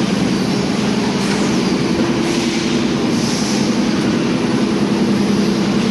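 Automatic shrink-wrap machine's heat tunnel and conveyor running: a steady whir with a low, even hum.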